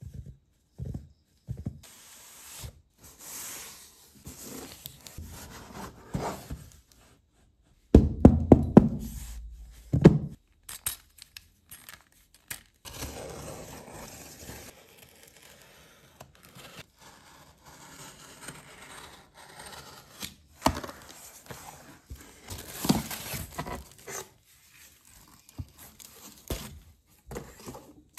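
Unboxing a cardboard shipping box by hand: gloves rubbing and patting the box, a few loud thumps about eight to ten seconds in, then a cutter slicing along the packing tape and the flaps opened onto rustling foam wrap.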